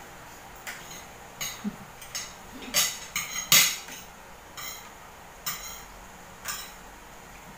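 Spoons and forks clinking against dinner plates as several people eat, in irregular short taps, loudest and most frequent about three seconds in.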